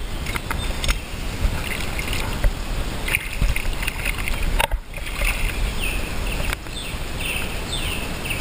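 Water of a shallow river running and rippling around a wading angler's legs, with a low rumble on the microphone and a few sharp knocks from handling.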